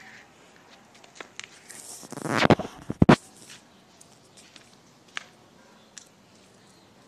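Phone handling noise: a loud rustling scrape on the microphone about two and a half seconds in, ending in a couple of sharp knocks, with scattered light taps and clicks before and after.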